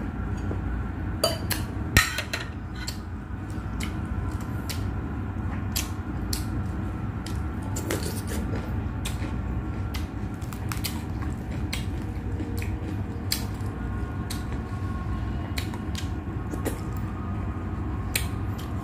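A person eating fried fish with their fingers: wet chewing and mouth smacks, with irregular sharp clicks from fingers and food against the plate and a louder click about two seconds in, over a steady low hum.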